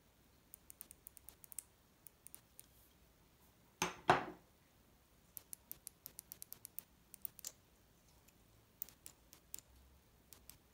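Small plastic and metal parts of a gaming mouse clicking and ticking as they are handled and pried apart with a screwdriver, with a louder two-part crack and scrape about four seconds in.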